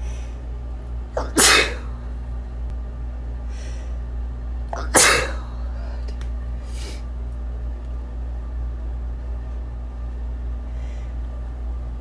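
A person sneezing twice, about three and a half seconds apart, each a sharp burst with a short lead-in, with a fainter short noise a second or two after each. A steady low hum runs underneath.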